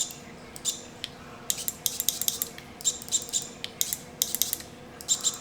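SRAM GX AXS wireless shifter paddles being clicked repeatedly to test the electronic rear derailleur: short, sharp mechanical clicks in quick clusters of two to five, with brief pauses between.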